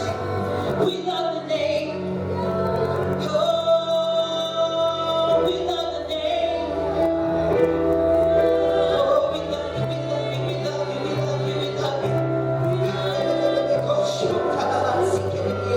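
Gospel music: several voices singing over long held bass notes that change every few seconds.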